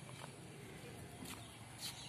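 Faint outdoor background noise with a few soft clicks scattered through it.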